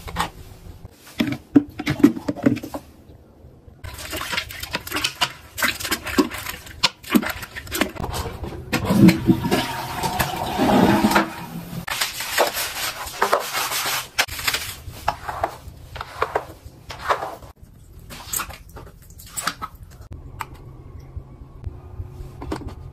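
Bathroom cleaning sounds: water-like hissing and scrubbing, with many sharp plastic clicks and knocks.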